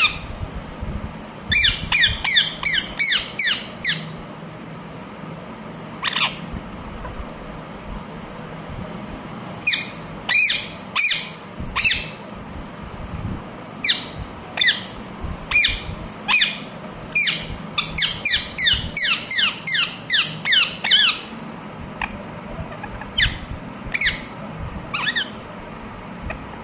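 Indian ringneck parakeet squawking in rapid runs of short calls, each call dropping quickly in pitch, with single calls and pauses between the runs.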